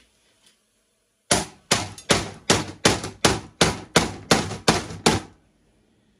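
A hammer striking a screwdriver held as a punch against an old Elna sewing machine, to drive out a pin holding its motor. There are about eleven sharp metallic blows in quick succession, roughly three a second, starting about a second in, each with a brief ring.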